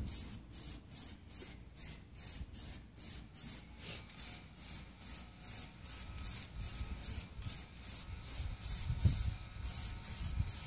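Plasti Dip aerosol spray can hissing in short bursts, about three a second, as a light first coat of rubber coating is sprayed onto a car grille.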